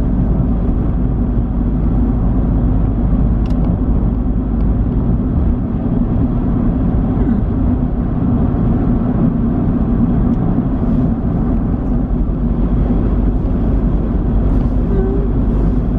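Steady road and engine rumble heard from inside a moving car's cabin.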